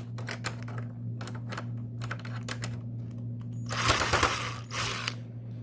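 Screwdriver taking small screws out of an electric fan's oscillating gear housing: a run of small irregular clicks, with a short scraping rasp about four seconds in, over a steady low hum.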